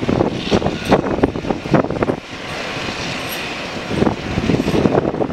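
Boeing 737-300's CFM56 jet engines running at taxi power, a steady rushing whine that is clearest about two to four seconds in. It is mostly covered by uneven, gusty rumbling of wind buffeting the microphone, which is the loudest sound.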